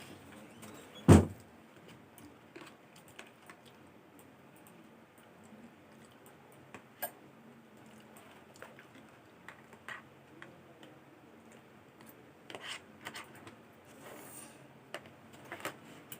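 Scattered small clicks and clinks of utensils and tableware being handled during a meal, with one loud knock about a second in.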